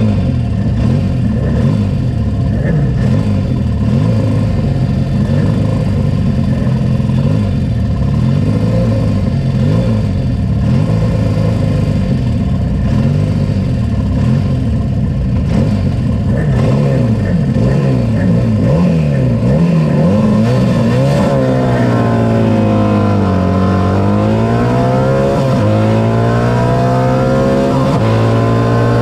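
Racing sidecar outfit's engine held at high revs and blipped while stationary, with other outfits' engines running around it. About two-thirds of the way through it revs up and pulls away, the pitch climbing and dropping back at each gear change.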